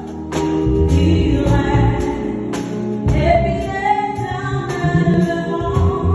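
Gospel worship music: voices singing a praise song over a band, with drums and cymbal hits keeping a steady beat.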